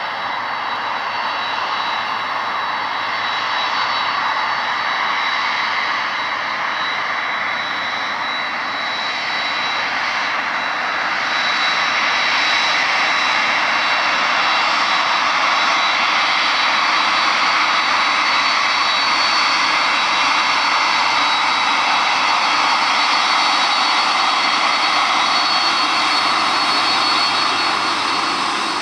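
Boeing 767-300F freighter's twin General Electric CF6 turbofan engines at taxi power: a steady jet rush with a high, even whine. It grows louder about a third of the way in as the plane rolls closer.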